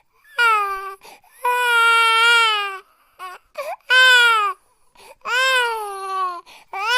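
Infant crying in a run of wails, each about a second long with its pitch falling off at the end, separated by short catching breaths.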